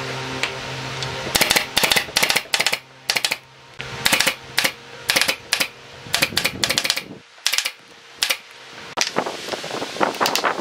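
Pneumatic brad nailer firing again and again, sharp separate shots a fraction of a second apart with short pauses, as nails are driven through pallet slats into a bent-wood frame. A steady hum stops about a second in, and near the end come quicker, lighter hammer taps on nails.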